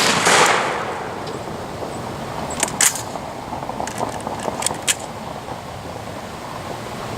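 Steady wind noise buffeting the microphone in a stiff cross wind, with the fading report of a shotgun shot at the very start. A few sharp clicks come about three seconds in and again between four and five seconds in.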